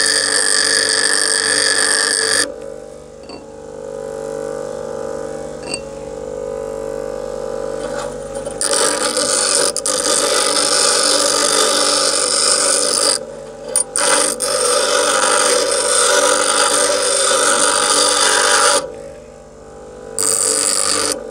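Bench grinder running with a steady motor hum while a steel file is pressed to the wheel: loud harsh grinding for the first two seconds or so, again from about nine seconds to nineteen with a brief break near fourteen, and once more just before the end.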